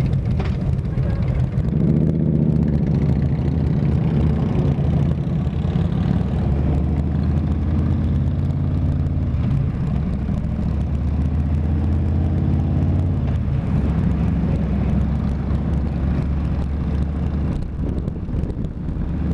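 Harley-Davidson V-twin motorcycle engine pulling away from a stop about two seconds in, then running steadily at cruising speed.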